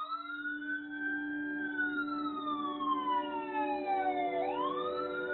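Wailing siren: one long wail that rises, slides slowly down, and rises again about four seconds in, over a steady low tone.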